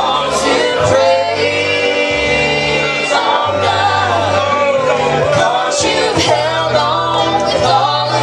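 A gospel song sung with instrumental accompaniment: voices carry the melody over held bass notes that step to a new pitch about once a second.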